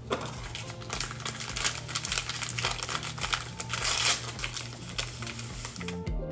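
Packet of instant cheesecake pudding mix crinkling as it is opened and emptied into a mixing bowl, with light background music.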